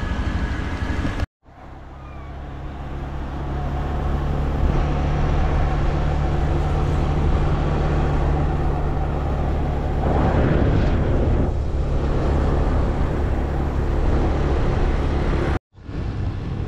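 Motorbike engine running steadily under way, with rushing air noise; it grows louder over the first few seconds, and there is a brief swell about ten seconds in.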